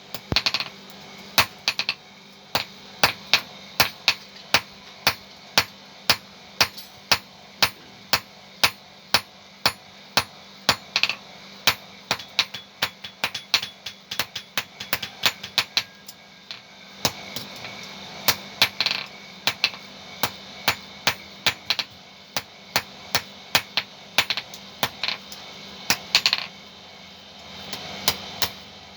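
Hammer striking metal over and over, about two to three blows a second with a short metallic ring after each, as a dental band remover is forged. The blows come unevenly, some in quick pairs, with a few brief pauses.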